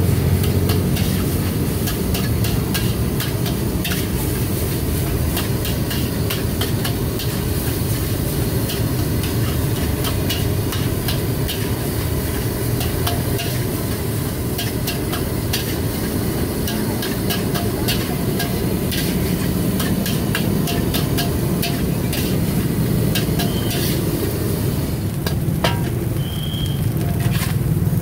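Fried rice frying in a wok, sizzling, with a metal spatula scraping and tapping against the pan in quick irregular clicks, over a steady low rumble.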